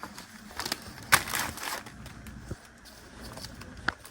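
Things being handled: a sharp knock about a second in, followed by a short rustle, with a few lighter clicks and a sharp click near the end.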